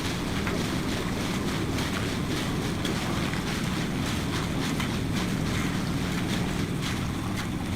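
Concrete mixer running steadily, with many short clicks and knocks over the rumble.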